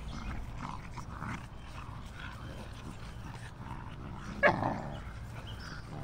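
Puppies making small yips while they play tug-of-war over a rope toy. About four and a half seconds in, one loud yelp falls in pitch.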